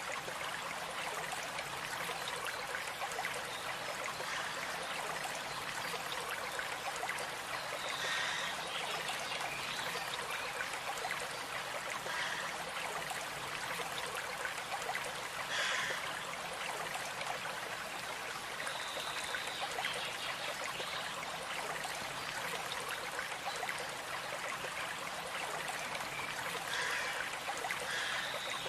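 A stream running and trickling steadily, with a few brief bird calls here and there.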